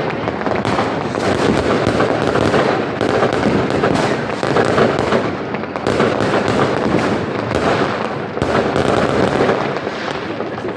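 Fireworks and firecrackers going off all around in a dense, unbroken barrage of overlapping bangs and crackling.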